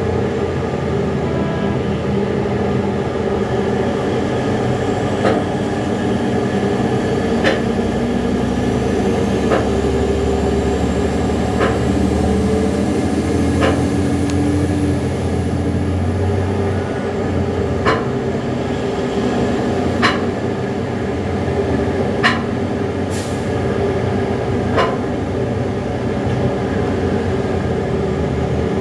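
Liebherr R 9250 mining excavator's diesel engine running steadily under load, with sharp clicks about every two seconds and a short hiss near the end.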